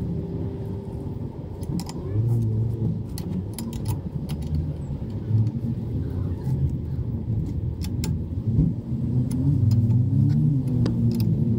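Sharp metallic clicks and clinks of a wrench turning a bicycle crank puller on the crank arm, over an engine running, its pitch rising and falling a few times.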